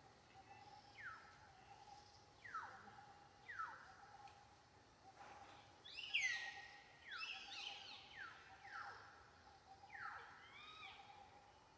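About ten short, high-pitched animal calls, each sliding down in pitch, coming more often in the second half, over a faint steady drone.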